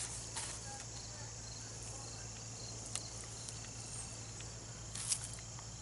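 Insects, crickets most likely among them, chirping steadily and faintly, with a few faint clicks.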